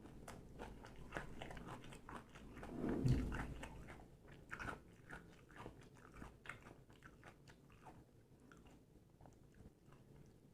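Close-up crunching and chewing of panipuri, the crisp hollow puri shells cracking in the mouth. The loudest crunch comes about three seconds in, and the crunching thins out and grows quieter towards the end.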